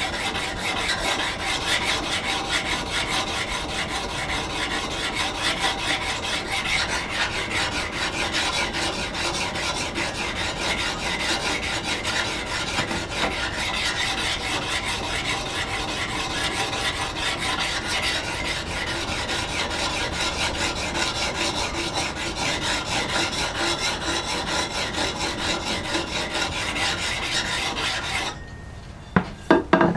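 Diamond sharpening plate, on its finer side, rubbed back and forth by hand across the steel bevel of a hewing hatchet, honing the edge after a burr has been raised: a continuous scraping rasp. The rubbing stops shortly before the end, followed by a couple of short knocks.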